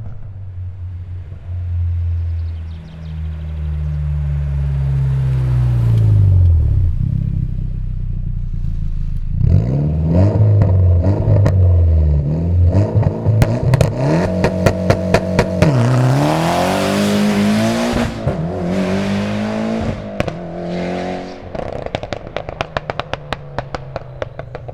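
Tuned Mitsubishi Lancer Evolution X's 2.0-litre turbocharged four-cylinder (4B11) being driven hard. The revs fall, then climb and drop repeatedly as it accelerates and lifts. From about ten seconds in, rapid sharp cracks and bangs come from the exhaust, with a rush of hiss in the middle.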